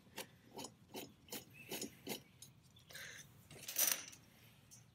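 Light ticks, about two or three a second, as the blade bolt is turned out of an EGO battery mower's blade hub, then a short rustling scrape of gloved hand on metal a little before the end.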